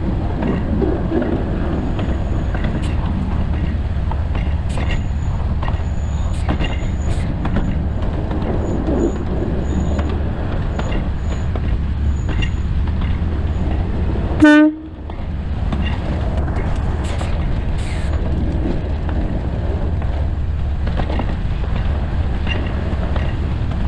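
Alishan Forest Railway narrow-gauge train running: a steady low rumble from the wheels and running gear with scattered clicks. About halfway through, a short horn toot sounds, after which the sound briefly drops away before the rumble returns.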